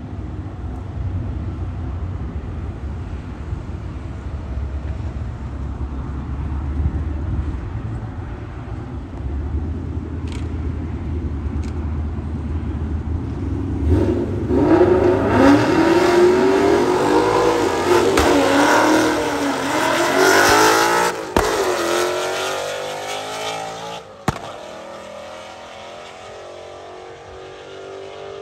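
Ford Mustang Bullitt's 5.0-litre V8 and a second car in the next lane rumbling at idle on the start line. About halfway through they launch with a sudden loud burst, the Mustang running on nitrous, its revs climbing and dropping through several upshifts before the sound fades as the cars pull away down the strip.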